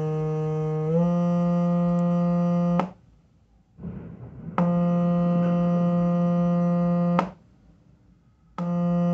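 Low, buzzy electronic test tone from a portable speaker driven by a phone tone-generator app, stepping up from about 155 Hz to 174 Hz about a second in. It cuts off twice and comes back, with a brief noise in the first gap.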